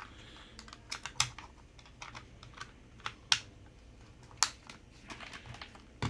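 Irregular sharp plastic clicks and taps, about ten of them, the loudest a little past halfway, from a TZ P9 mini wireless keyboard's plastic case as its battery cover is fitted back on over the lithium-ion battery.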